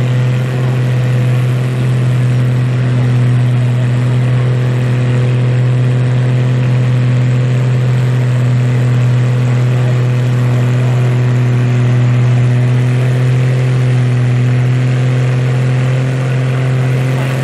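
Oliver farm tractor's engine running hard at a steady pitch under load as it drags a weight-transfer pulling sled at a slow, even speed.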